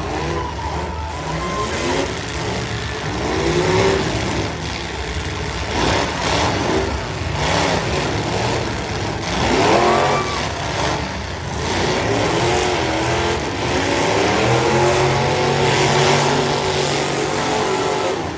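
Several V8 demolition-derby cars revving hard and dropping back again and again, engine pitches sweeping up and down over tyre noise. Now and then there is a sharp crunch of cars ramming each other.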